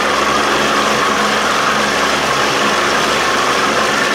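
Johnson 60 hp two-stroke outboard motor running steadily under way, pushing the boat at a constant speed, over the rush of water and wind from the wake.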